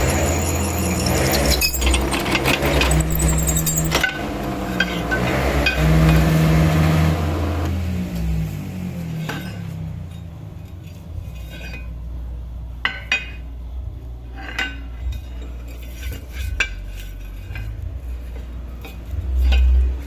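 A drill motor running loudly for about eight seconds, its pitch dipping and rising, then dying away. After that come scattered metal clinks and taps.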